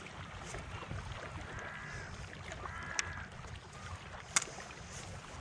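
Wind on the microphone and gentle shoreline water on a sandy beach, with a few faint high-pitched calls and two sharp clicks, the louder one near the end.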